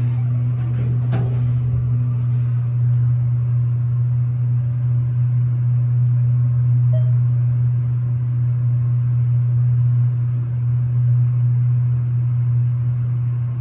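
Elevator motor running with a steady low hum, with a few faint clicks in the first couple of seconds.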